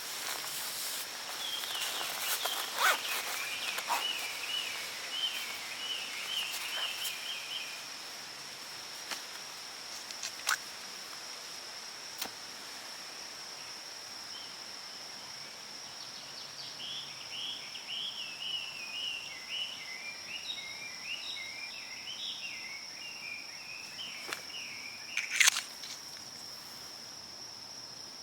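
Woodland ambience: a steady, high insect drone throughout, with a songbird singing runs of short trilled phrases in two spells. Scattered sharp clicks and knocks come through as well, the loudest a little before the end.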